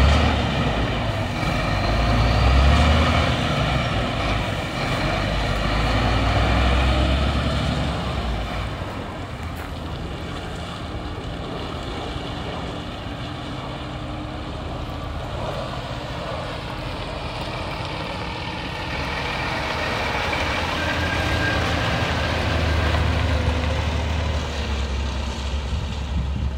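Renault Kerax 320 dCi truck's diesel engine running as the truck drives off. It is loud at first, drops away for a stretch while the truck is at a distance, then grows louder again as it comes back close in the last seconds.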